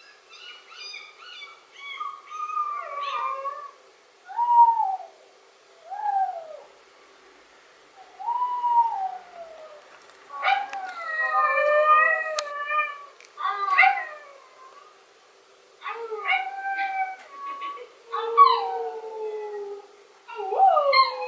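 A dog howling and yelping in a series of separate calls that bend in pitch: quick high yips at first, then short falling howls, with a longer drawn-out howl about ten seconds in.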